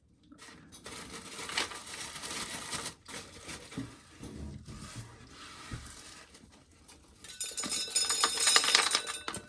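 Dry shelled corn kernels rattling and rustling, swelling near the end into a louder clatter of many small kernels.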